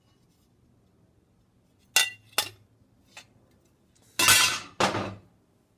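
A 22-gauge stainless steel sheet striking a steel forging stake. There are two sharp ringing clinks about two seconds in and a light tap, then two longer, rattling clangs near the end.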